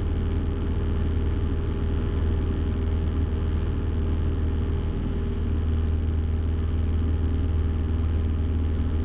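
Cessna 172M's four-cylinder Lycoming engine and propeller droning steadily in flight, heard inside the cabin.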